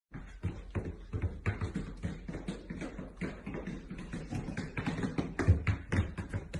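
Irregular light tapping and knocking, several taps a second, with a couple of heavier thumps about five and a half seconds in.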